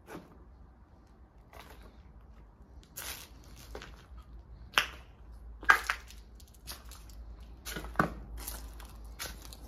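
Footsteps crunching over debris: about a dozen irregular sharp crunches, the loudest a little past the middle.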